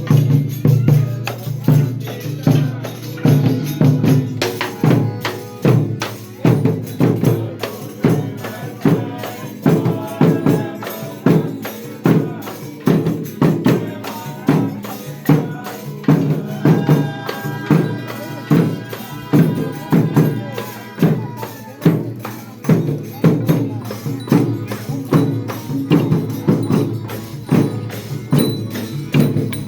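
Folia de Reis folk band playing, with a tambourine keeping a strong, regular beat about once a second under a melody.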